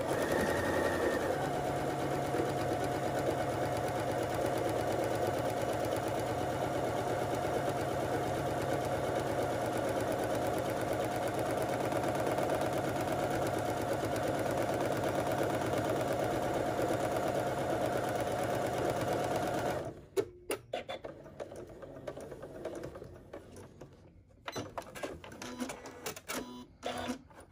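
Electric sewing machine stitching steadily around the edge of a fabric circle, running at an even speed for about twenty seconds and then stopping abruptly. Afterwards come a few quiet clicks and fabric rustles.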